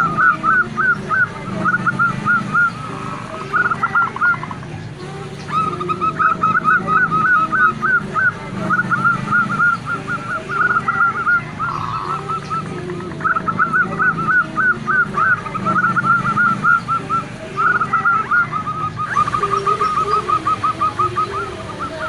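Zebra dove (perkutut) calling: rapid runs of short, quickly repeated notes, each run lasting two or three seconds with brief pauses between, and one longer unbroken run near the end. These are the calls of a female zebra dove, kept to draw calling from males.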